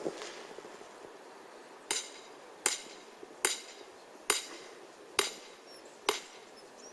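Hammer blows, six sharp, evenly spaced strikes a little less than a second apart, each with a bright metallic ring.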